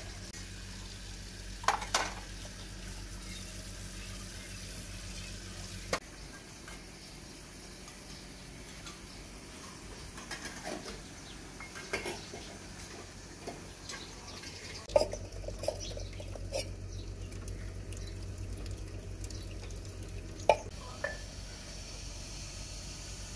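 Steel dishes and plates clinking as they are washed by hand, with a short cluster of clinks about two seconds in. Later come scattered knocks and clatters, the two loudest sharp single hits, over a steady low hum.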